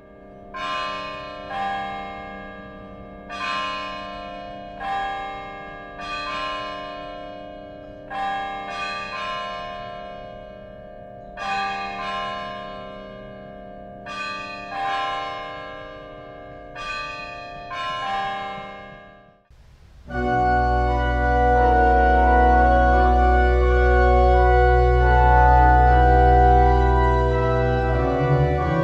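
Bells struck about fifteen times in an uneven pattern, each note ringing and fading away; about two-thirds of the way through they cut off abruptly and a church organ starts playing, louder, with a deep held bass.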